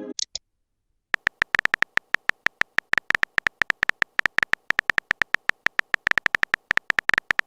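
Rapid, uneven series of short tapping clicks with a slight tone, like a phone keyboard typing sound effect, starting about a second in.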